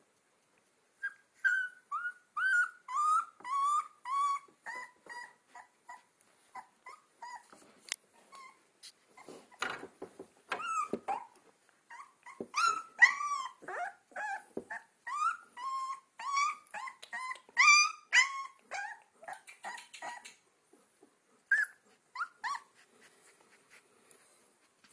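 Two-week-old Alaskan Malamute puppies whimpering and yelping: a long run of short, high cries, the first ones sliding down in pitch. Louder, longer cries come in the middle, as one pup lifts its muzzle in a howl, and the cries thin out near the end.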